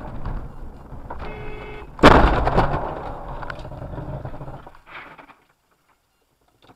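Car collision recorded by a dashcam: road and engine noise, a brief shrill tone just over a second in, then a loud crash about two seconds in, with crunching and rattling that fades over the next couple of seconds.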